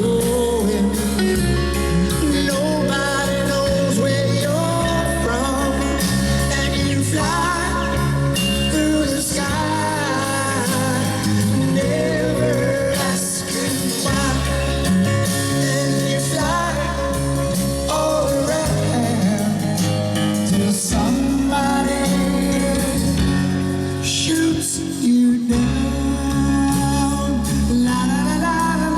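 A song with a singing voice over guitar and a bass line.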